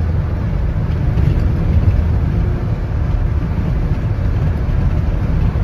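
Steady road and engine noise inside a moving vehicle's cabin, a low rumble with an even hiss above it.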